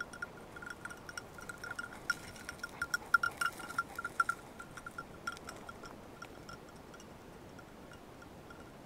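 Small metal bell on a hunting dog's collar tinkling in irregular clusters as the dog moves. The ringing is busiest from about two seconds in and thins out and fades after about five seconds.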